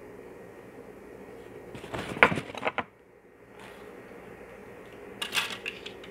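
Tableware being handled: two short bouts of crackling and clicking, the louder about two seconds in as a small dish is set down and a lighter one near the end as a plastic yoghurt cup is picked up.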